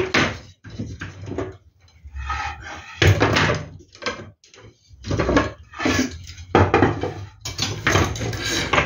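Eucalyptus and pine slats strung on wire with wooden balls knocking and clattering against each other and the wooden workbench as the slatted panel is shifted and turned over, in irregular bursts of knocks.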